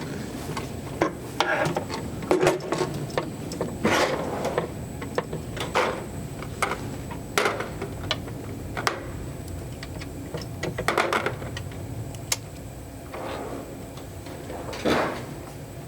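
Hand work on a boat console: irregular sharp clicks and knocks, with several short scrapes, as tools and parts are handled while the steering base is fitted and screwed in place.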